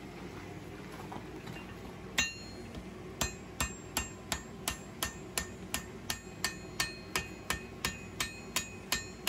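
Hand hammer striking hot steel on an anvil: one blow a little after two seconds in, then a steady run of blows about three a second, each with a short metallic ring. It is hand forging, rounding over the pommel of a knife's handle. A low steady hum lies underneath.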